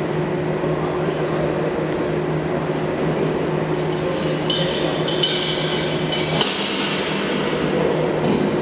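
Steel weight plates and collars on a loaded bench-press barbell clinking and knocking as the loaders change the weight. Silent for the first four seconds or so, then several metallic knocks with a ringing tail; the loudest comes about six seconds in. A steady low hum runs underneath throughout.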